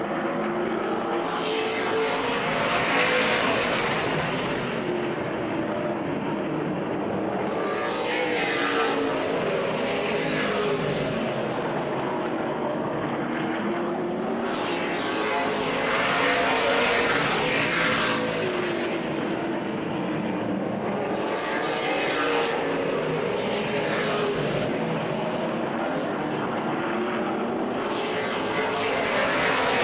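A pack of late model stock cars racing on a short oval, their V8 engines rising and falling in pitch as they run through the turns. The sound swells several times as the field passes close by.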